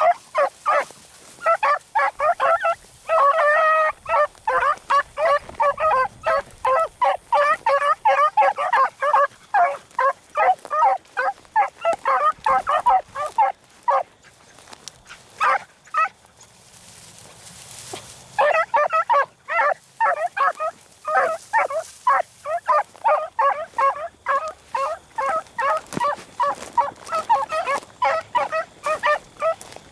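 A pack of beagles baying in full cry while running a rabbit's scent trail, a fast overlapping stream of hound voices. The cry breaks off for about two seconds just past halfway, then starts up again.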